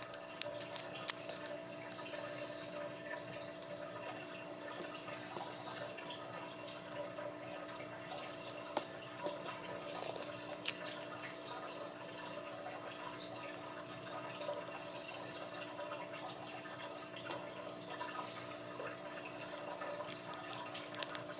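Water dripping in scattered small ticks over a steady hiss, as from melting wet snow, with a faint constant hum.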